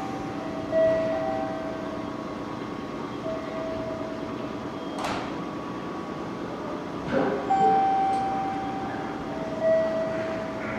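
Steady train noise from the 2000 series diesel train, with a two-note electronic tone repeating over it, a higher note and a lower note sounding in turn. A sharp click comes about five seconds in, and a few knocks come a couple of seconds later.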